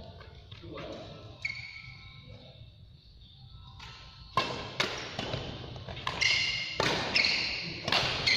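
Badminton rally: racquets striking a shuttlecock in a run of sharp smacks, about one every half second to second from about four seconds in, echoing in a large hall. High squeaks of shoes on the court floor come with the hits.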